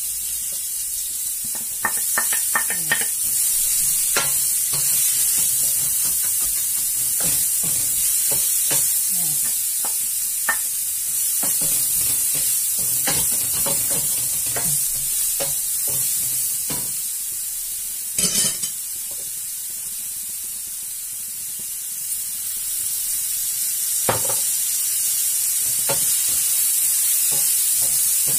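Chopped leek sizzling in hot oil in a stainless steel pan, stirred with a wooden spoon that scrapes and knocks against the pan. There is a brief louder clatter about two-thirds of the way through.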